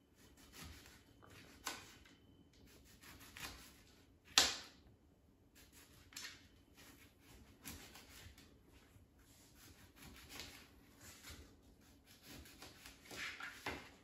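Knife slicing a lemon on a cutting board: faint, irregular cutting strokes and taps of the blade on the board, with one sharper knock about four seconds in.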